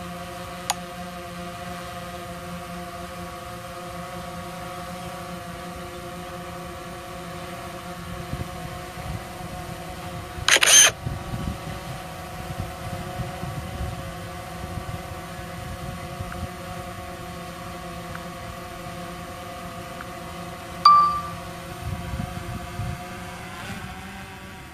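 DJI Phantom Pro quadcopter's propellers humming steadily in a hover, a steady pitched hum with several even tones. About ten seconds in there is a loud short burst of noise, and about 21 seconds in a sharp click with a brief beep. Near the end the pitch of the hum shifts as the drone starts to fly forward.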